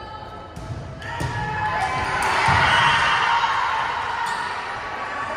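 Basketball being dribbled on a gym court, with crowd noise in the gym swelling about a second in, loudest around three seconds, then fading.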